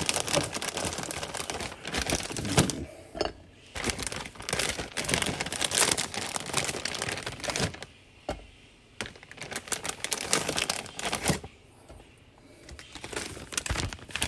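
Kitchen handling noise: irregular crinkling with scattered light clicks and taps as food is moved onto a plate, with a few short pauses.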